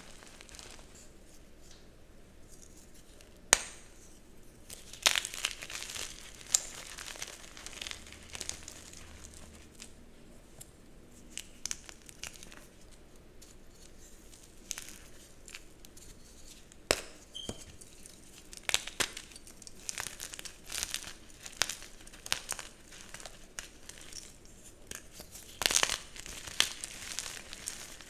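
Dyed gym chalk blocks being crushed and crumbled: irregular dry crunches and crackles, the chalk crunchy but soft, with a few louder crunches about three and five seconds in and a burst near the end.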